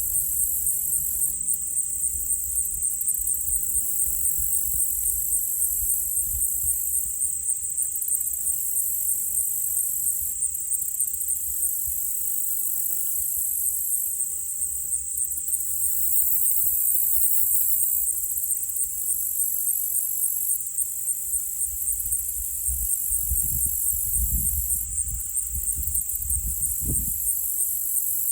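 Steady, high-pitched chorus of insects with a fast pulsing trill. A low rumble runs underneath and swells in a few surges near the end.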